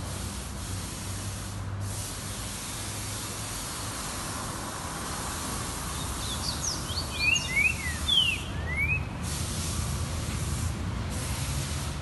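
Green-winged saltator (trinca-ferro) giving a short phrase of quick sliding whistled notes about two-thirds of the way through, over a steady background hiss.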